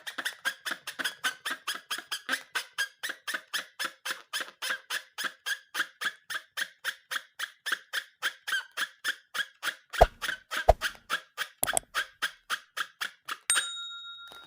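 Rubber balloon squeaking rhythmically as it is worked by hand, about four squeaks a second. A few sharp taps come near the end, then a brief ringing chime.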